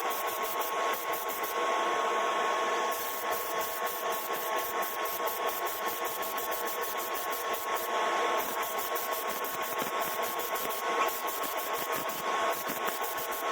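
A small motor running steadily, with a constant hiss and a steady whine.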